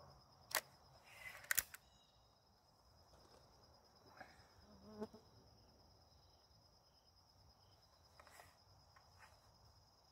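A steady high insect trill, with a few sharp clicks and knocks from the air rifle being handled: one about half a second in, a quick cluster about a second and a half in, and a softer knock about five seconds in.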